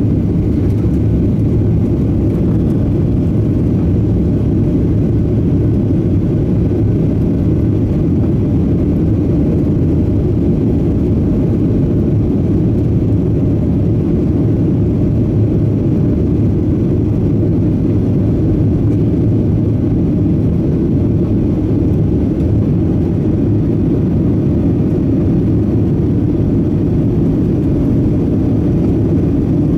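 Steady cabin noise inside a Boeing 737-700 climbing out after take-off, heard from a window seat by the wing: the CFM56-7B engines at climb power and the rush of airflow, a deep even drone that holds level throughout.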